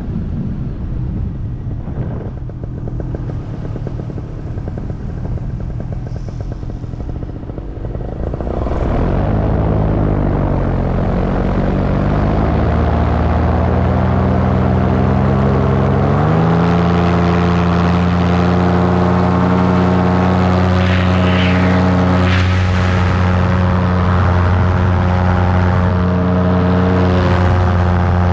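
Paramotor engine and propeller running in flight. For the first eight seconds it is a lower, rough rumble; then it is throttled up, gets louder, dips and climbs in pitch, and about sixteen seconds in settles into a steady drone.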